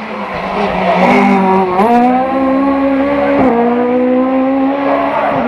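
Hill-climb race car engine running hard at full throttle as it climbs. The pitch dips sharply near two seconds in, then drops at a gear change about three and a half seconds in before holding steady.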